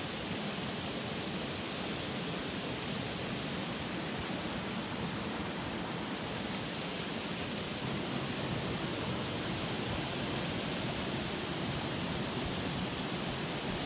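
Small mountain stream rushing steadily over rocky cascades into a pool, a constant even rush of water.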